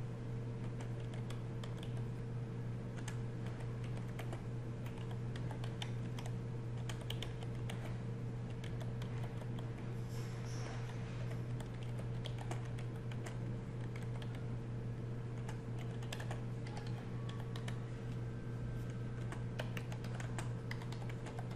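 Typing on a computer keyboard: a steady run of irregular keystroke clicks, over a constant low hum.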